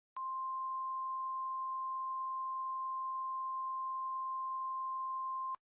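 Emergency Alert System warning tone: a single steady electronic beep just above 1 kHz, held for about five seconds, switching on and off abruptly with a click at each end.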